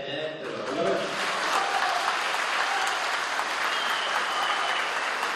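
Audience applauding: a man's voice breaks off in the first moment and steady clapping from a crowd takes over and keeps going.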